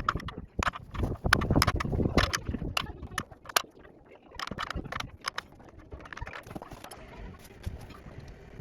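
Metal hand tools clinking and knocking in quick, irregular clicks, busy for the first half and sparser after, as a spanner is worked on an oil drain plug valve under a car.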